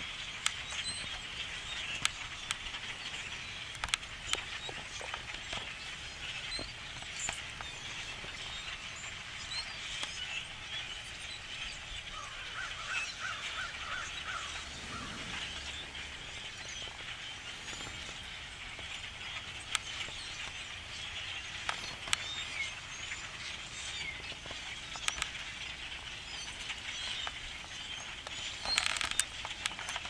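A huge flock of blackbirds calling all at once: a dense, steady chatter of many overlapping chirps and whistles, with a short run of repeated lower notes about halfway through.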